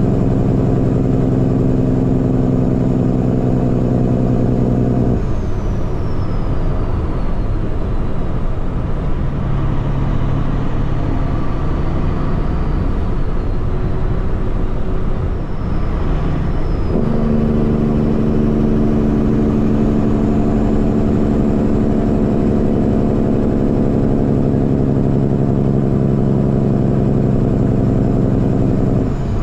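Semi-truck diesel engine running steadily under a constant rush of road noise. The engine's hum drops out suddenly about five seconds in, leaving mostly road noise, and comes back just as suddenly about twelve seconds later.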